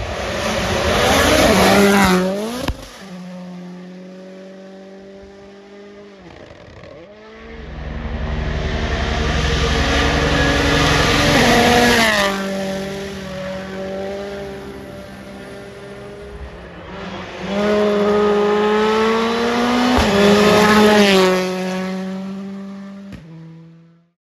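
World Rally Championship Rally1 cars, with 1.6-litre turbocharged four-cylinder engines, passing flat out one after another, three times swelling loud and fading. Each engine note rises and falls in pitch through gear changes and lifts, and the last pass dies away near the end.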